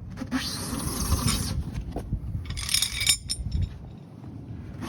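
Scraping and handling noise, then a quick run of metallic clinks about three seconds in, as the Ford Ranger's spare tire and its under-bed carrier are handled.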